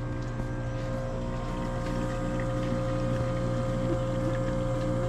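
Milk-on-tap vending dispenser running, its pump giving a steady hum while it dispenses fresh milk.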